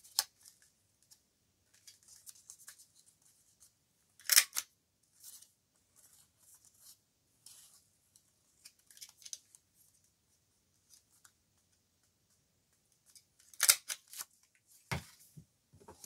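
Plastic lever-style paper border punch snapping down through a strip of card, two loud snaps about nine seconds apart and a softer one just after the second, with paper rustling and sliding between them as the strip is repositioned.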